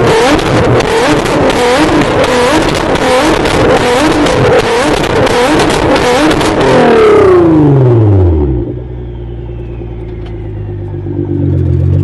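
Nissan GT-R R35's twin-turbo V6 revved hard through a loud exhaust, its pitch jumping up and down quickly over a dense crackling. It is held high for a moment, then the revs fall away to idle about eight or nine seconds in, and climb again near the end.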